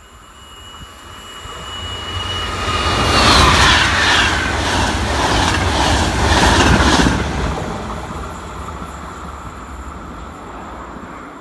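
Trenitalia Intercity train passing close by at speed. A thin high tone is heard as it approaches, then the rumble swells to a peak between about three and seven seconds in, with a rapid rhythmic clatter of wheels over the track, and fades as the last coaches go by.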